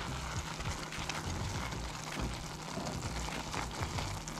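Silicone spatula stirring stuffing mix, bread crumbs soaking up hot buttered water, in a nonstick pan on the stove: a wet, irregular crackle and scrape with a light sizzle.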